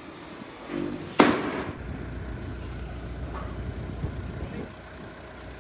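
A single sharp bang about a second in, then the steady low running of a JCB loader's engine.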